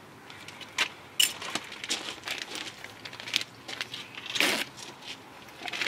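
Scattered sharp clicks and clinks of hand tools and brake parts, then a short rustle of a plastic parts package being handled about four and a half seconds in, the loudest sound.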